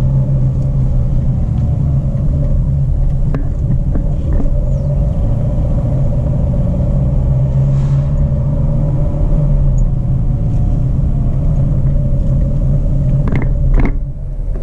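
Jeep Renegade 4x4 driving on a dirt road: a steady low rumble of engine and tyres with a steady drone, scattered knocks and rattles, and a short dip with a couple of sharper knocks near the end.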